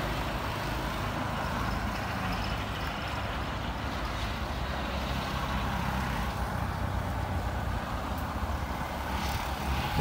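Boeing 777-300ER's twin GE90 turbofans at takeoff thrust, a steady low rumbling jet noise heard from behind as the airliner rolls away down the runway.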